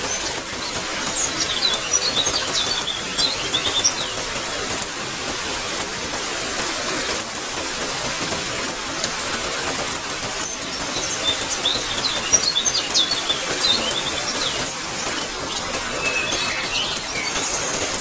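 Steady hiss of falling rain, with small birds chirping in three spells: about a second in, around the middle, and near the end.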